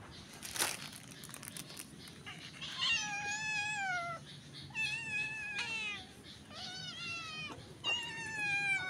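Domestic cat meowing: four drawn-out meows of about a second each, the pitch dropping at the end of each, with a sharp click about half a second in.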